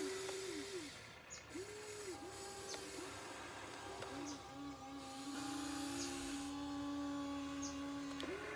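Small electric motors of a mini RC excavator whining in short bursts, each spinning up, holding and winding down, then one longer steady whine from about four seconds in until near the end.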